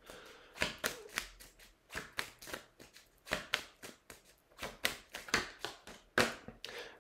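A deck of cards being shuffled and handled by hand: a string of sharp, irregular card snaps and clicks, a few each second.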